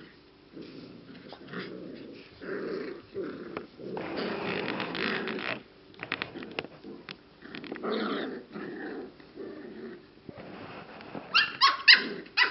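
English Cocker Spaniel puppies growling as they play and tussle, in low, rough bursts. Near the end comes a quick series of sharp, high yips.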